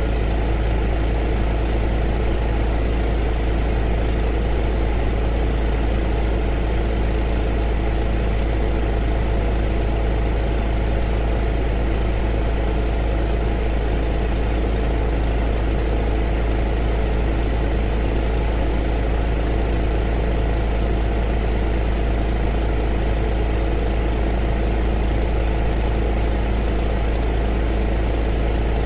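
Heater running steadily: a deep low hum with several steady tones over an even rushing of air, unchanging throughout.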